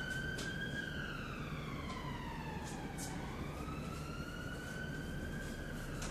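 A siren wailing, its pitch rising and falling slowly in a cycle of about five to six seconds, with a few brief scratchy sounds over it.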